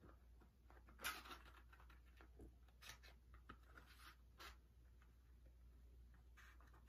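Faint handling sounds of plastic cards being slid one by one into a small leather card holder: soft scrapes and light clicks, the loudest about a second in.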